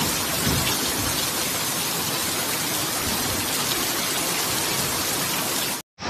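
Steady hiss of heavy rain falling on a flooded street with floodwater running. It cuts off abruptly just before the end.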